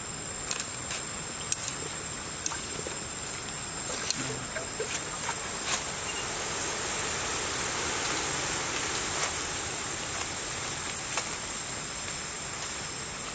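Cleaver slicing through raw salmon flesh on a wooden board, with scattered sharp clicks and knocks of the blade, over a steady high-pitched insect drone.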